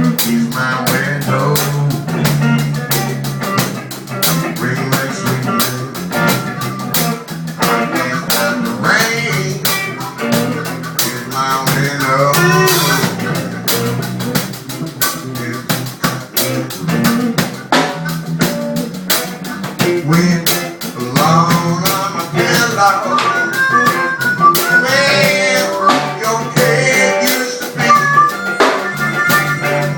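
Band playing a blues song: a drum kit keeps a steady beat with rimshots while guitar carries melodic lines over it.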